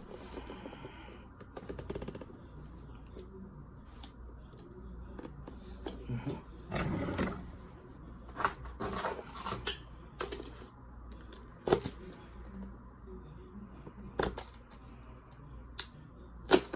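Headphone box packaging being opened by hand: rustling and scraping, then a run of sharp clicks and taps, some irregularly spaced.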